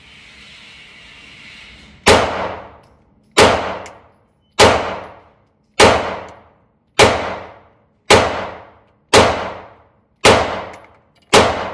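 FMK 9C1 Gen 2 9mm pistol firing nine shots at a steady pace of about one a second. Each loud shot rings and echoes off the walls of an indoor range. A faint steady hiss comes before the first shot, about two seconds in.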